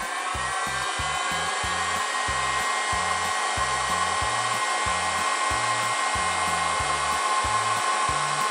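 Heat gun blowing steadily with a high fan whine, shrinking heat shrink tubing onto a coax antenna.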